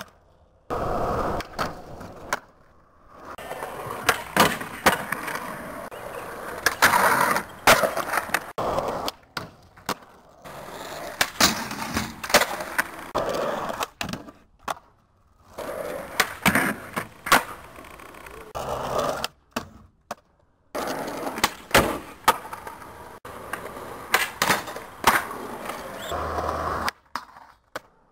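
Skateboard wheels rolling on concrete, broken again and again by sharp clacks of the tail popping and the board landing, as one trick follows another. The rolling cuts out briefly several times.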